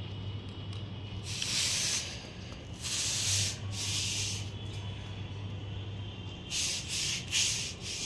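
Six short hissing bursts, each well under a second, come in two groups: three in the first half and three close together near the end. A steady low hum runs beneath them.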